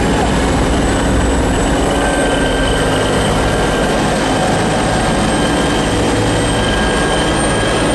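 Loud, steady cabin noise of a Bell CH-146 Griffon helicopter running: a low rotor and engine rumble under a high turbine whine held on a few steady pitches.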